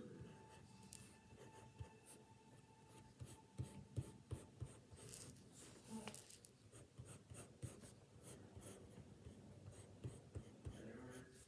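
Wooden graphite pencil scratching faintly across sketchbook paper in short, irregular strokes as lines are sketched.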